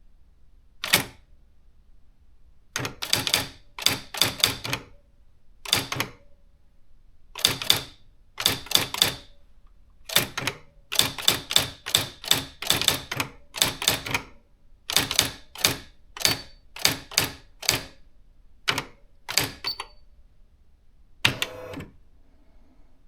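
Nakajima AX-80 electronic typewriter typing: sharp print strikes in quick runs and short groups with brief pauses between, then one longer, rougher mechanical burst about two seconds before the end.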